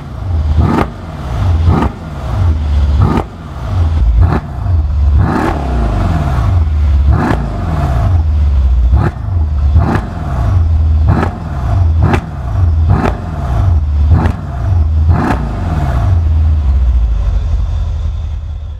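Mercedes-Benz SL63 AMG's 5.5-litre twin-turbo V8 revved through its exhaust in a quick series of short blips, about one a second, each rising and falling back with a sharp crack at the top. Near the end it settles back to idle.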